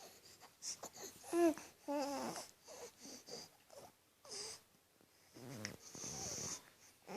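A baby's short high-pitched vocal bursts, three in the first half, then a longer breathy huff near the end, as the baby imitates sneezing.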